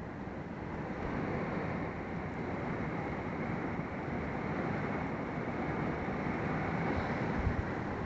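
Heavy rain pouring down in a thunderstorm, a steady rushing hiss, with wind buffeting the microphone. There is a brief low bump near the end.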